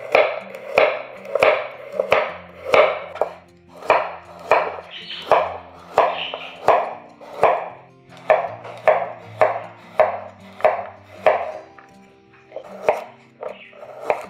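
A knife chopping food on a cutting board in a steady rhythm, about three cuts every two seconds, pausing briefly near the end before a few more cuts. Soft background music plays underneath.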